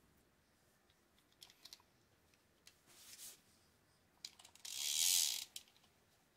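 Handling noise from a Shimano TLD 30 two-speed fishing reel being picked up and turned over: scattered light clicks and knocks, with a brief rustling hiss about five seconds in.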